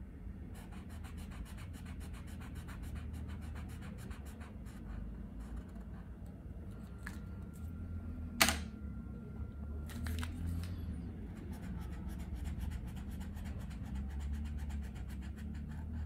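Posca paint marker tip worked over paper in rapid short scratchy strokes, with a single sharp click about eight seconds in and a few more strokes after it.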